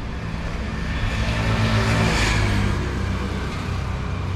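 A motor vehicle driving past close by. Its engine hum and road noise swell to a peak about two seconds in, then ease off.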